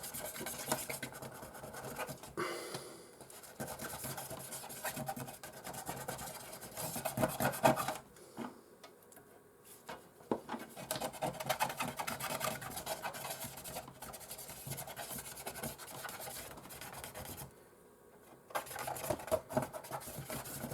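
Scraping and rubbing on the hard plastic and metal parts of a PlayStation 4 being taken apart, in quick irregular strokes with two short pauses.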